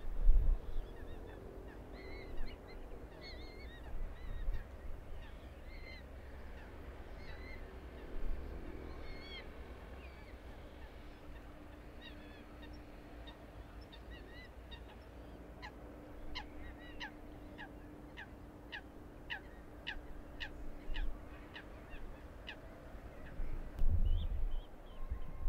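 Wetland ambience: birds calling over a low rumble, with a quick run of about a dozen sharp, repeated descending calls a little past the middle. A faint steady hum sits under the middle section, and low rumbling bumps come at the start and near the end.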